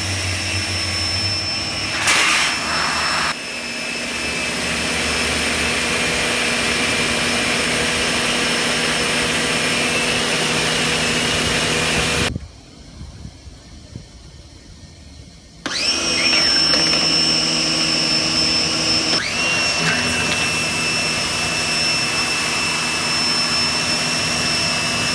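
Residential electric pressure washer with a universal motor running with a steady high whine. The motor cuts out about twelve seconds in and starts up again about three seconds later, its pitch settling as it comes back up to speed.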